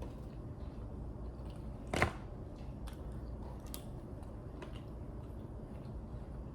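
Close-miked eating: quiet chewing with small mouth clicks, and one short, louder crunch or knock about two seconds in.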